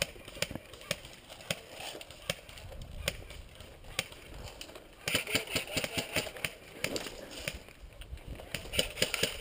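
Footsteps on dry dirt and fallen leaves with clicks and rattles of worn gear, growing denser and louder about five seconds in.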